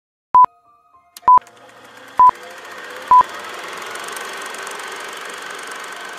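Four short, identical electronic beeps at one pitch, a little under a second apart, like a countdown. Beneath them a steady whirring noise fades in from about a second in and grows louder.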